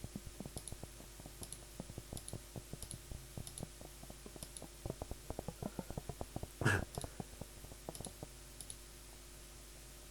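Synthesized paper-crumple effect from a Vital software synth: a rapid, irregular stream of soft clicks and crackles, an imperfect imitation of crumpling paper. One louder crackle comes about two-thirds of the way through, and the clicking stops about nine seconds in.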